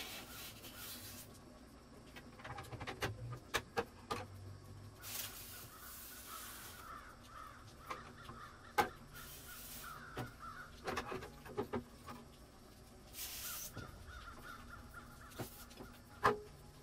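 Hot liquid in a stainless steel tray on a gas burner bubbling and hissing in surges of a second or two, with scattered small metallic clicks from the wire-hung parts and the stirring rod touching the tray.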